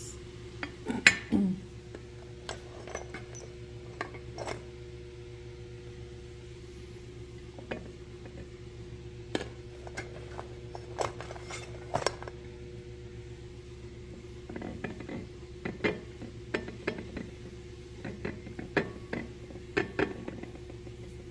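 Plastic rice paddle scraping and tapping against a rice cooker's pot and a ceramic plate as cooked rice is scooped and served: scattered light clinks and knocks, the loudest about a second in, over a steady low hum.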